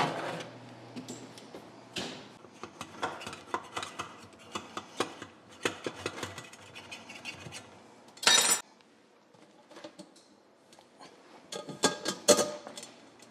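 A table knife scraping and clicking around the inside of a metal cake pan, a quick rattling scrape about eight seconds in, then loud clanks near the end as the pan is turned over onto a wire cooling rack to release the cake.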